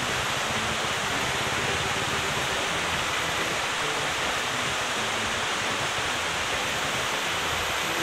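Steady, loud rush of water, an even hiss with no pauses or changes.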